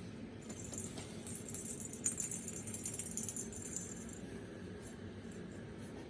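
A light metallic jingling rattle, like a small bell or keys, that starts about half a second in and lasts about four seconds, with a few sharp clicks in it. Steady low background noise runs underneath.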